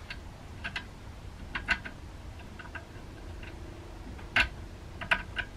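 Irregular small clicks and taps of screws and the TV wall-mount bracket being handled behind a wall-hung TV as a mounting screw is fitted by feel; about eight clicks, the sharpest one about four and a half seconds in.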